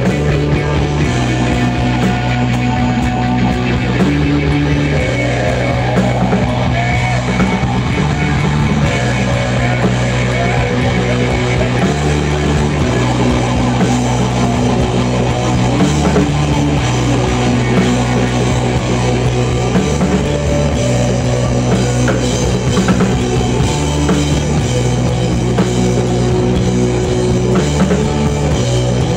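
Live rock band playing a loud instrumental jam: a bass line cycling through the same few notes over and over under steady drums and guitar.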